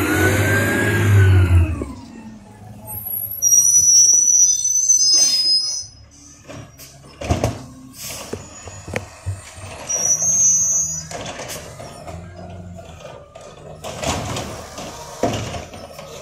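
Amrep automated side-loader garbage truck: the engine revs up and falls back, then the truck moves off with its brakes squealing twice, high-pitched, and a few knocks and clanks from the body.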